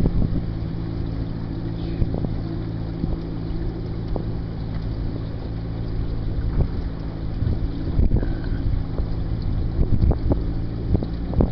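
Mercury 60/40 outboard jet motor running steadily at cruising speed, with wind buffeting the microphone in gusts.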